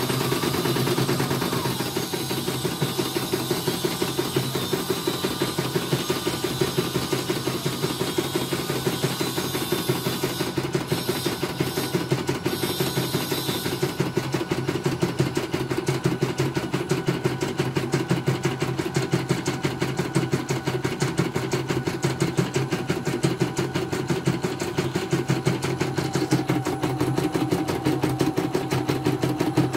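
CNY portable embroidery machine stitching a design: a steady, rapid, even needle clatter over the hum of its motor, running normally as a test after servicing.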